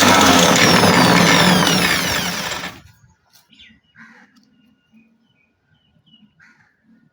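Electric power tool, the grinder or sander working the knife's metal, running loudly, then its pitch falling as it winds down and stopping just under three seconds in. Faint chirps and small clicks follow.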